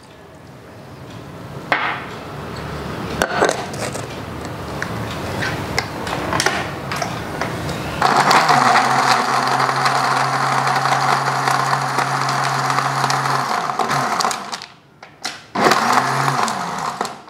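A 1300-watt Philips HR7776 food processor's blender switching on about eight seconds in. It runs steadily for about six seconds, blending mango pieces, ice cubes and milk into a milkshake, then stops, and a short second burst follows near the end. Before it starts there is lighter clattering and handling.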